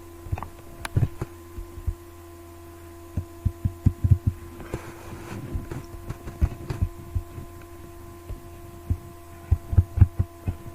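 Irregular clusters of sharp clicks and taps from someone working a computer's mouse and keyboard, over a steady electrical hum.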